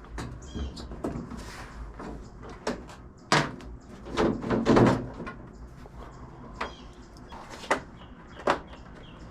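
Scattered knocks and clunks as the hood of a John Deere riding mower is unlatched, lifted and handled.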